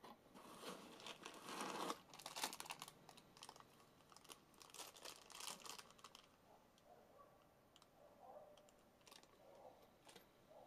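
Faint crinkling and rustling of a small clear plastic bag of screws and wall plugs being handled, loudest in the first two and a half seconds, then fading to scattered soft rustles.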